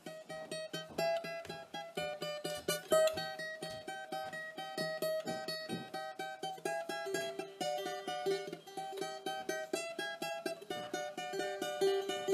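Mandolin music: a quick, continuous stream of picked notes.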